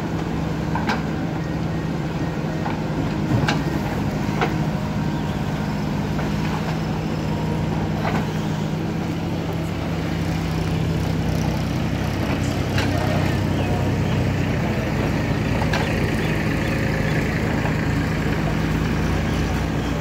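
JCB backhoe loader's diesel engine running steadily, with a few sharp clanks scattered through and the engine a little louder in the second half.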